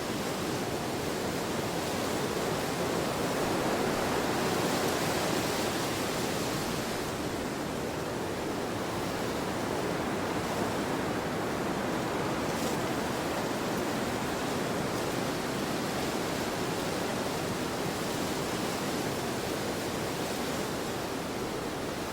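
Wind blowing steadily as a broad, even rush, swelling a little a few seconds in and then easing back.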